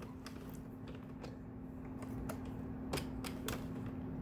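Plastic circular knitting machine clicking irregularly, a few clicks a second, as its needles are worked around the ring, with a faint steady hum underneath.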